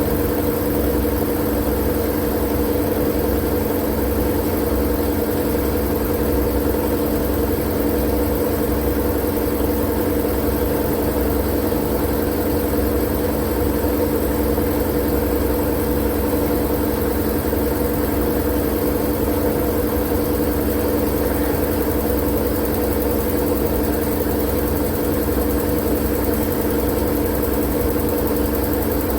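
Continuous white-noise track: an even, unchanging hiss with a steady low droning hum underneath.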